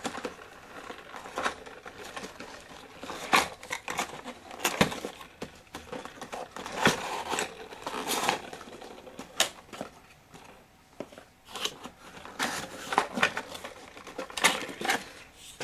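Box packaging being handled and pulled apart: irregular clicks, knocks and crinkling as the inner piece of the box is removed.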